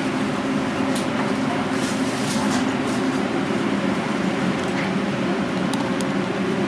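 Steady whirring of a countertop blender motor, running at an even level with a constant low hum and a few faint clicks.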